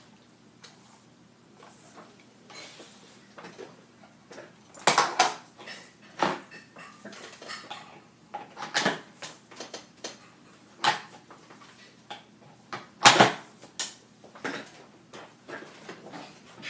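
Chameleon AKT adjustable keyboard tray and its round mouse platform being moved and set into position: irregular hard clacks and knocks, about half a dozen sharp ones, the loudest about thirteen seconds in.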